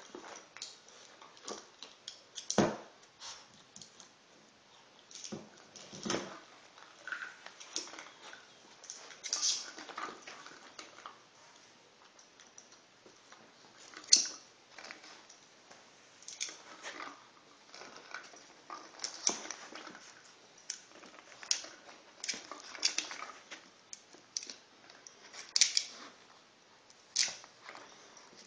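A small dog nosing and batting a hollow plastic toy ball across carpet: irregular clicks, knocks and rattles as the ball rolls and its contents rattle, with a few louder knocks.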